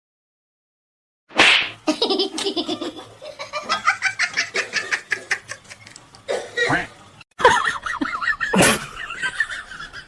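A person laughing hard in quick repeated bursts, starting suddenly after a second or so of silence; the laughter breaks off briefly about seven seconds in and starts again with a loud outburst.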